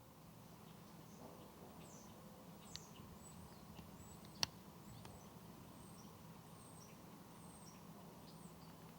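Faint, scattered bird chirps over a low steady hum, with one sharp click about four and a half seconds in.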